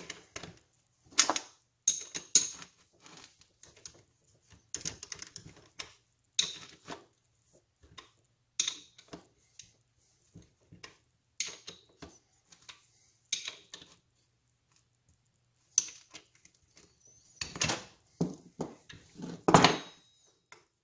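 Small metal engine parts and hand tools clinking and tapping at irregular intervals as washers and a nut are fitted on a 110cc two-stroke engine's crankshaft, with a louder run of knocks near the end.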